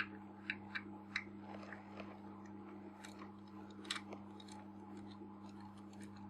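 Faint small clicks and ticks of a small screwdriver and tiny screws on a metal lens barrel as the screws holding an inner ring of a Nikon 50mm f/1.4 lens are taken out, sharpest in the first second or so. A steady low hum runs underneath.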